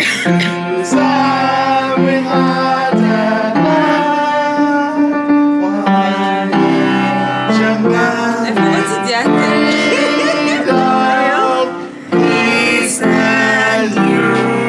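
Music: sustained instrumental chords with a singing voice that slides between notes.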